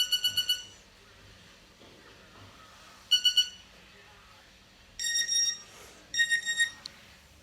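Nokia 2630 mobile phone alarm tones playing through the phone's speaker: a fast run of electronic beeps that stops about half a second in, a short burst of three beeps about three seconds in, then two bursts of a slightly higher beep pattern near the end.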